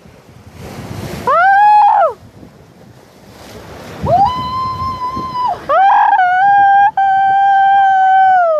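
A woman's high, drawn-out wordless calls while waving: a short rising-and-falling call, then two long held calls, the last sliding down in pitch at the end. A brief gust of wind on the microphone about a second in.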